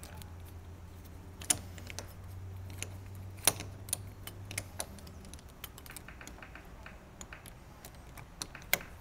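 Metal deadbolt parts clicking and tapping as the lock's cylinder and thumb-turn halves are fitted together through the door's bore. The clicks are sharp and come irregularly, the loudest a little over a second in and near the middle. A low steady hum lies under them and fades out about halfway.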